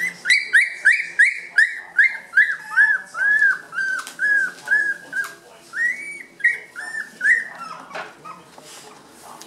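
Puppies whining in a rapid series of high, arching yelps, about three a second, that stop after about seven seconds.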